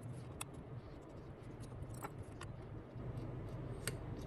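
A few faint, sharp metallic clicks from tiny screws being worked out of an iPhone 7 Plus's internal bracket with a precision screwdriver, over a low steady hum.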